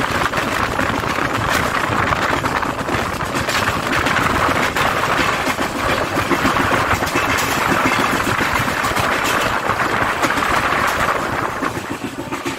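Passenger train running along the track, heard from an open coach doorway: a steady rattling rumble of wheels on rail with rushing air.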